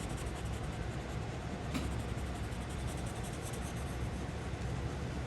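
Colorless blender pencil rubbing back and forth on paper, blending colored pencil, with a steady background hiss and hum and one small click.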